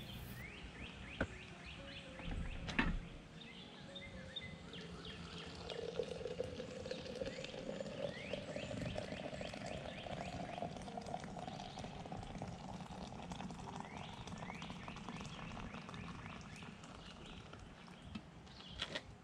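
Hot water poured from an enamel coffee pot into a glass French press, the pitch of the pour rising slowly as the press fills. Birds chirp repeatedly in the background, and there are two light knocks in the first three seconds.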